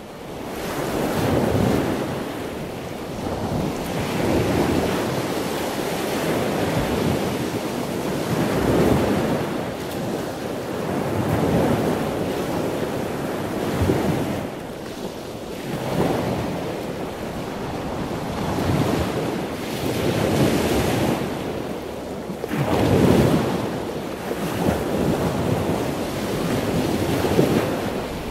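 Sea waves washing onto a shore, with wind, rising and falling in swells every few seconds.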